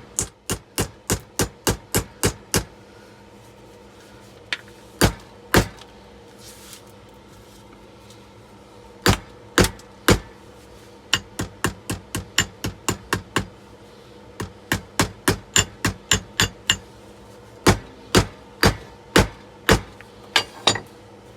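Hammer blows on a small-engine magneto, struck in quick runs of about four a second with short pauses between, as the magneto is broken apart to get down to its copper coil.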